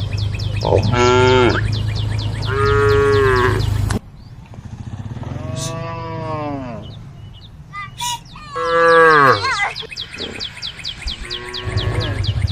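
Cows mooing: about five long, drawn-out calls one after another, the loudest a little past the middle. A steady low hum with rapid ticking runs under the first few calls, stops abruptly, and comes back near the end.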